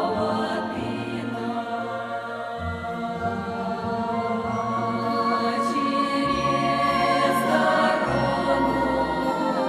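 Background music with choral singing in long, held notes over a slowly changing bass line.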